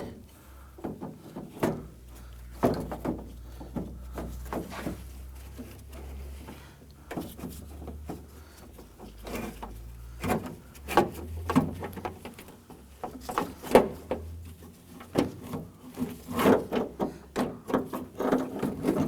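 Exterior door handle bracket assembly being handled and worked up into a car door shell: irregular clicks, knocks and scraping of plastic and metal parts, over a low steady hum.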